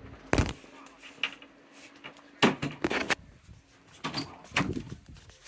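About half a dozen short knocks and clicks, with a quick cluster of three near the middle.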